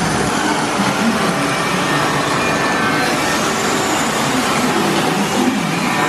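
Steady loud rushing noise on an indoor river raft dark ride: flowing water and ride machinery, with no rhythm or sudden events. A low rumble drops away just after the start.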